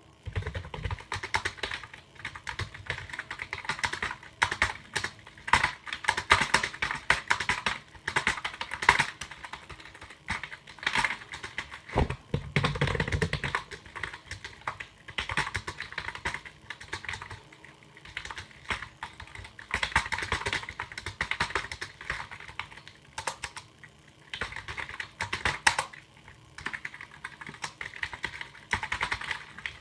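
Typing on a computer keyboard: quick runs of key clicks in bursts with short pauses between them. About twelve seconds in comes a sharper knock, followed by a stretch of deeper, heavier clatter.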